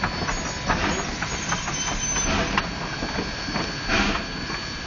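Narrow-gauge steam locomotive and coach moving slowly: a steady hiss of steam with irregular knocks and chuffs, the strongest about four seconds in.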